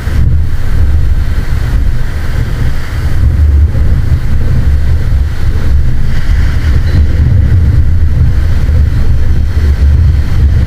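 Wind buffeting the microphone in a loud, steady low rumble, with surf washing behind it.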